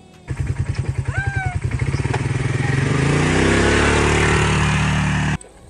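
Small ATV engine running and speeding up, its pitch climbing, then cutting off suddenly near the end. A brief rising-then-falling tone sounds over it about a second in.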